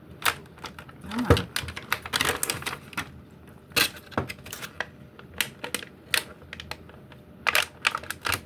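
Doll packaging being opened by hand: a quick, irregular run of clicks, crinkles and scrapes from cardboard and plastic.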